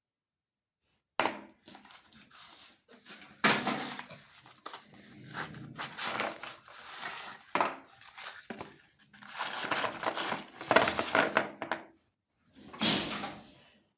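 Chocolate being crushed in a meat grinder: irregular crunching and cracking in bursts with short pauses, starting suddenly about a second in.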